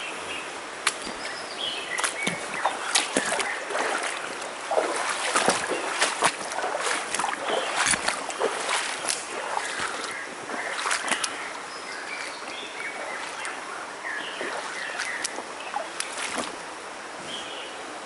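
Someone wading through a shallow stream: irregular water splashes and sloshing steps with twigs and leaves brushing, busiest in the first half and calmer near the end, over the steady flow of the stream.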